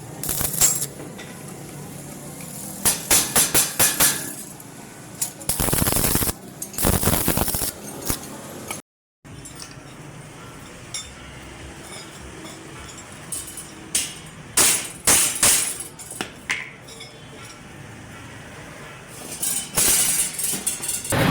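Metal clinking and striking, metal on metal: clusters of sharp strikes several times, over a steady background noise, with a brief drop-out near the middle.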